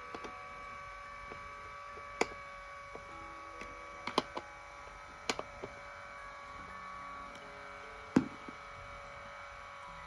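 Lourdes AX-HL168 massage cushion's motor and gear unit running with a steady electric hum: the abnormal 'boo' drone, which the uploader traces to worn up-and-down rollers leaving play at the gear-motor. Several sharp clicks sound over it, the loudest about eight seconds in.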